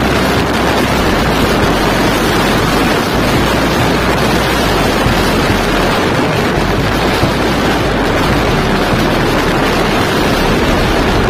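Loud, steady wind rushing over the microphone of a moving motorcycle, with road and engine noise underneath.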